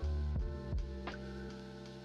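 Background instrumental music: sustained notes over a deep bass, with new notes striking in now and then.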